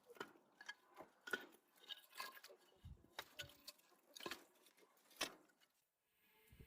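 Faint, irregular light clicks and knocks, a few each second, which stop about six seconds in, followed by a faint steady hum.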